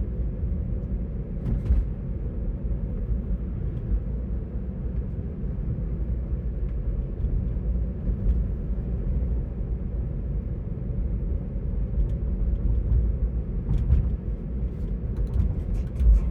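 Steady low road and tyre rumble inside the cabin of a 2021 Tesla Model 3 electric car driving on its own, with no engine sound, and a few faint clicks.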